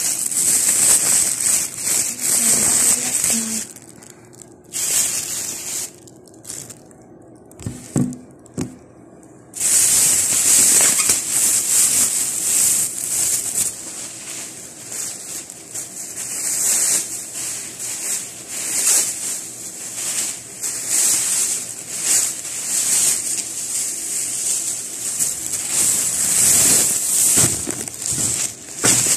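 A plastic bag holding a bundle of leafy greens crinkling and rustling as it is handled close to the microphone, with a quieter stretch of several seconds early on broken by a couple of soft knocks.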